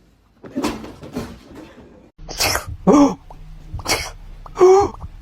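A pet sneezing over and over in short, sharp bursts, about six in a few seconds, two of them ending in a brief squeaky cry that rises and falls.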